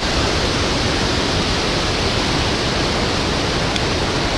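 Steady rush of hurricane wind and rain, an even roar with no breaks.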